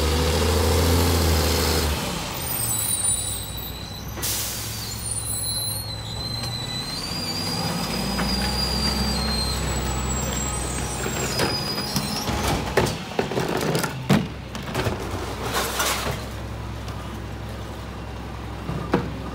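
Mack MR garbage truck's diesel engine running as it pulls forward, then a loud hiss of air brakes about four seconds in, followed by high squealing. The engine rises again, then bins of recycling are dumped by hand into the rear hopper with a run of clattering knocks and thumps, the loudest about two thirds of the way through.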